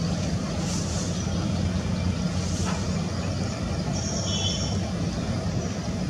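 Steady low engine-like rumble, with a short high chirp about four seconds in.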